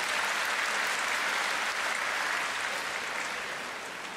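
Crowd applauding in a steady clatter of many hands. It is strongest over the first two or three seconds, then slowly dies away.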